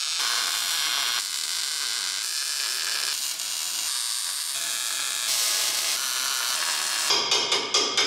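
MIG welder arc crackling and sizzling steadily as steel receiver tubing is welded to a frame cross member, in several short passes that break and restart every second or so. Near the end, a quick run of sharp clicks.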